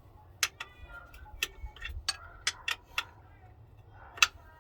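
Sharp metallic clicks at irregular intervals, about nine in all, the loudest a little past four seconds in: a hand-held end wrench being fitted, worked and repositioned on a tight engine bolt, a stroke at a time.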